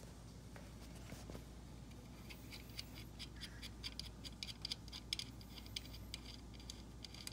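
Faint, irregular light clicks and scratches of small hand work on the repaired hole, starting about two seconds in and coming several times a second.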